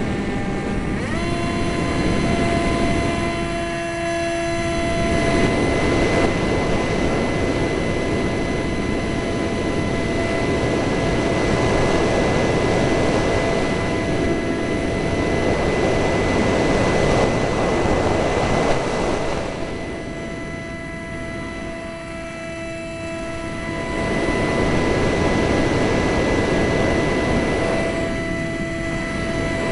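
A Eurofighter Typhoon's twin EJ200 turbofan engines running, a steady multi-tone whine over a dense rush of jet noise. The rush swells and fades every several seconds, as gusty wind hits the microphone.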